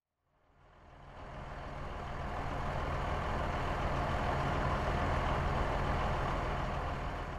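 Deep, steady rumble of a large ship's engine with a rushing noise over it, fading in over the first two seconds and fading out at the end.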